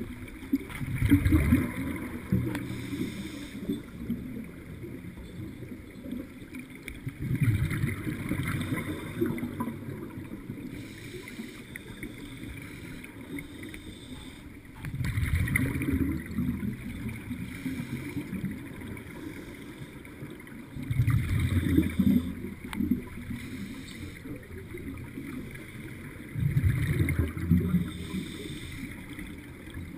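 Scuba diver's regulator exhaling underwater: bubbles rumble and gurgle in five bursts, about one every six seconds, with a quieter steady noise between.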